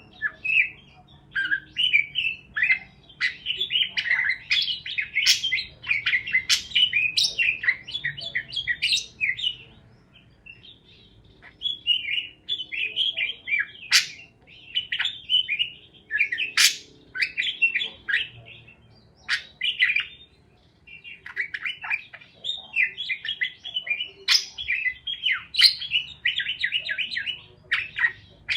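Parakeets chirping and chattering in quick, rapid runs, with occasional sharp squawks, in bursts broken by short pauses.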